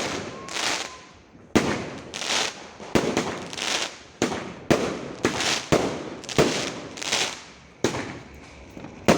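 Fireworks firing a rapid volley of shots, roughly one a second and quicker in the middle. Each is a sharp bang followed by a short hissing burst.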